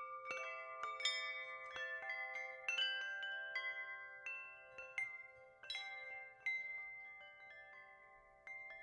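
Wind chimes ringing: clear metal tones struck at irregular moments, several to a second at first and fewer later. Each note rings on and slowly fades while others sound over it.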